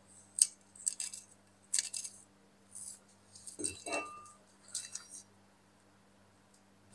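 Heavily rusted iron axe head handled in gloved hands: about half a dozen short scrapes and light clinks over five seconds as it is turned over against a stone worktop.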